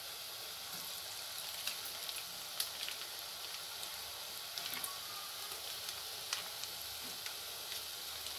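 Hot oil in a kadai sizzling steadily as strands of dough deep-fry in it, with scattered small crackles.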